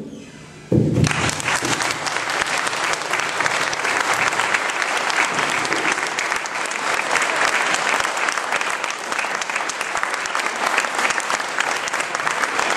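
Audience applauding in a hall: after a brief hush, the clapping breaks out about a second in and carries on steadily.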